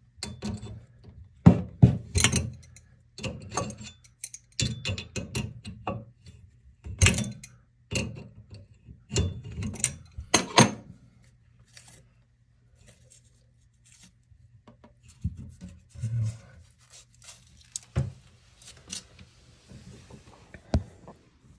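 Metal clicks and knocks of a crescent wrench working the nut of a toilet's braided supply line at the chrome shutoff valve as it is loosened. The knocks come thick and fast for about the first ten seconds, then grow sparse.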